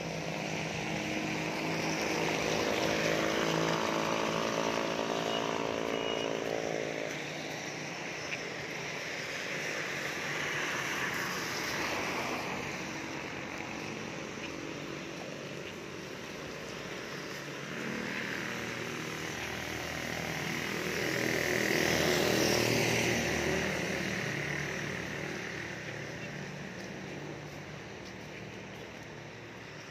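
Motor traffic passing on a rain-wet road. For the first several seconds there is a steady engine hum, then the hiss of tyres on wet pavement swells and fades twice as vehicles go by.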